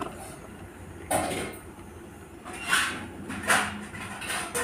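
Young parakeet giving about four short, raspy begging calls while being hand-fed bread.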